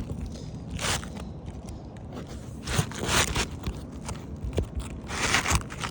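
Asphalt roofing shingles scraping against each other in a few short rasps as a new shingle is worked up under the course above.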